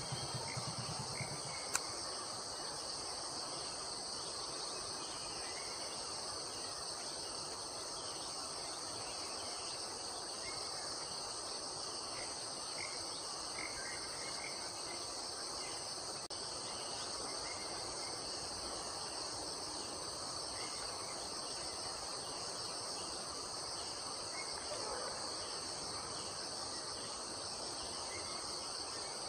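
Steady, high-pitched chorus of forest insects droning without a break, with one sharp click about two seconds in.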